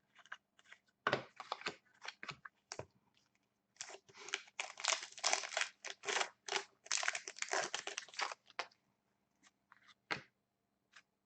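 Foil wrapper of a hockey card pack being torn open and crinkled: a few sharp crackles, then a dense run of rustling and crackling through the middle, and a last click near the end.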